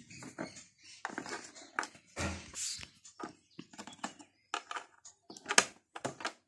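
Irregular plastic clicks, taps and rustling as fingers handle a toy RC car's plastic chassis and fit the battery pack's white plastic plug to the car's connector. The sharpest click comes about five and a half seconds in.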